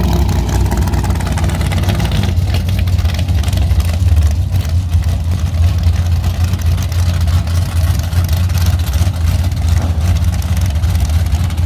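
A Chevy Nova drag car's engine idling as the car creeps along at low speed, a steady deep rumble without revving.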